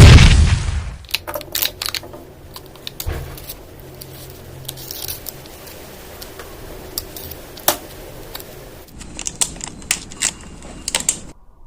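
Knife cutting through kinetic sand: scattered soft crunches and clicks over a faint hiss, bunching together near the end. It opens with a loud burst that fades within about a second.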